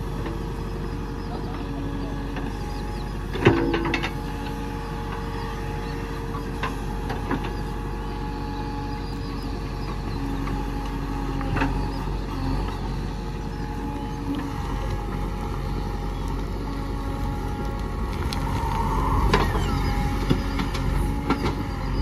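JCB 3DX backhoe loader's diesel engine running steadily under load with a hydraulic whine as the backhoe digs soil. A sharp metallic clank about three and a half seconds in is the loudest sound. Lighter knocks follow, and the engine and hydraulics swell near the end as the loaded bucket is raised and swung.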